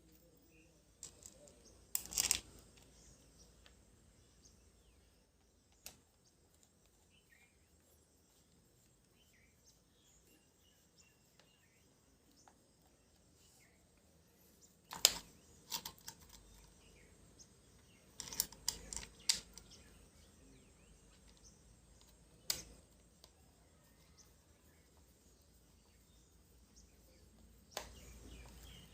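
A few scattered sharp clicks and knocks over a quiet background, with a small cluster of them about two-thirds of the way through.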